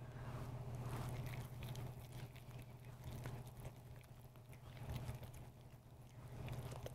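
Wooden spoon stirring thick bean dip in a ceramic bowl: faint, soft squelching and scraping, over a steady low hum.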